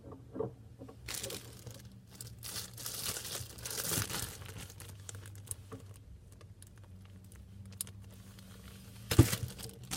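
Crinkling and rustling handling noise from slime and its container being handled, with a sharp clack about nine seconds in.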